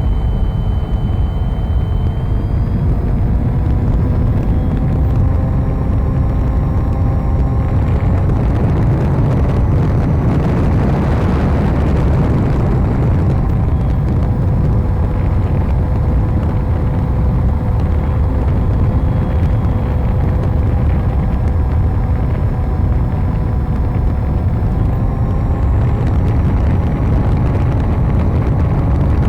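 Propeller-driven RC model airplane in flight, recorded by a camera mounted on it: a steady motor-and-propeller drone over heavy wind buffeting on the microphone. The pitch shifts slightly with throttle, and the rushing noise swells for a few seconds around the middle.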